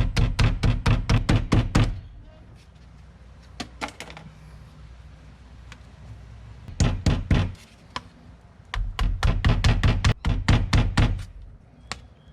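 Hammer tapping plastic wall plugs into holes drilled in a brick wall: quick runs of sharp knocks, about five a second, in three bursts, with a couple of single knocks between them.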